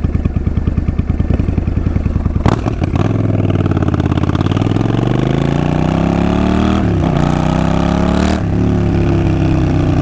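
Suzuki Boulevard S50's 805 cc V-twin engine idling with an even pulse, then pulling away. Its pitch climbs, drops at an upshift, climbs again and drops at a second upshift, then holds steady.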